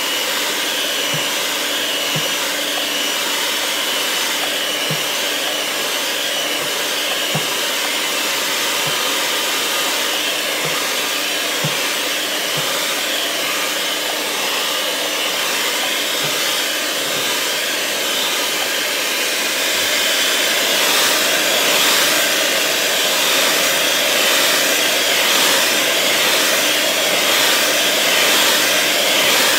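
Electric mixer running steadily with a motor whine, whipping cream and sweetened condensed milk toward stiff peaks for an ice cream base. It gets a little louder about two thirds of the way through.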